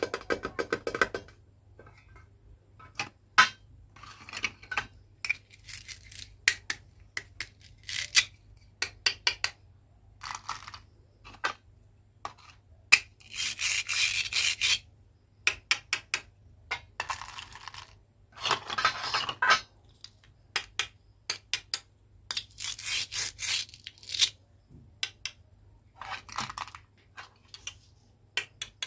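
Small hard items clicking and clattering against a hard surface or container, with several denser rattling stretches lasting a second or two.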